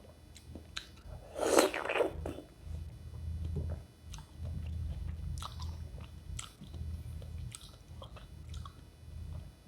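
Close-miked eating of raw cucumber in rujak sauce: one loud crunchy bite a second and a half in, then steady chewing with small wet clicks.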